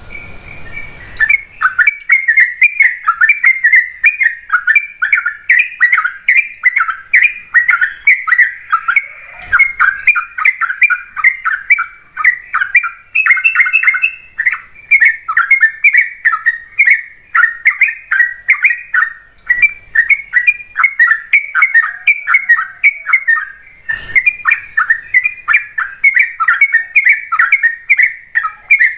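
Yellow-vented bulbul (trucuk) singing in a fast, unbroken 'ropel' run of short notes, starting about a second in.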